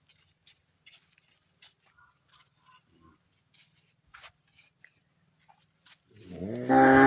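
A cow mooing: one long, low, steady moo that starts about six seconds in and is the loudest sound, after a stretch of faint scattered clicks and small chirps.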